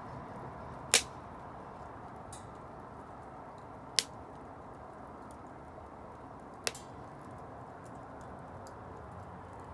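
Wood fire burning with faint crackling over a steady low rush, broken by three sharp pops of burning wood spaced about three seconds apart, the first about a second in.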